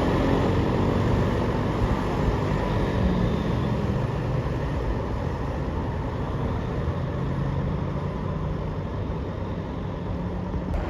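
A large bus engine running nearby with steady traffic noise; no horn is sounded.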